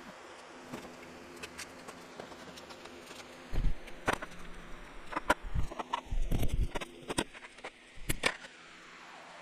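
Wooden boards knocking and thudding as they are handled and fitted together, a cluster of irregular knocks and bumps over the middle few seconds, over a faint steady hum.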